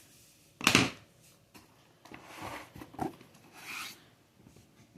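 Hand tools being handled in and out of a tool bag: a short, loud knock a little under a second in, then rubbing and rustling as the tools are moved.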